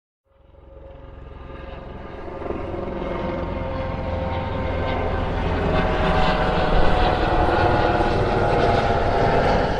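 Steady aircraft engine drone with a deep rumble. It fades in over the first couple of seconds and keeps growing louder.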